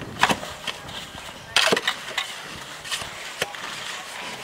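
Irregular scrapes and clinks of a shovel working mortar in a metal wheelbarrow. The loudest is a scraping clatter about a second and a half in.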